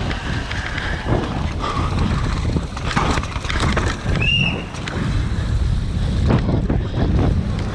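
Downhill mountain bike ridden fast over a rooty dirt trail: wind buffeting the microphone over a steady tyre rumble, with the bike clattering and rattling over bumps. A short high tone rises and falls a little past halfway.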